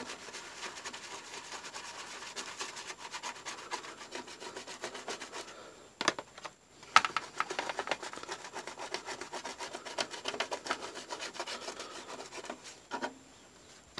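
Toothbrush scrubbing paint off a clear Lexan RC car body soaked in nitro fuel: rapid, scratchy back-and-forth rubbing. The scrubbing pauses briefly about six seconds in, with a couple of sharp clicks around the pause.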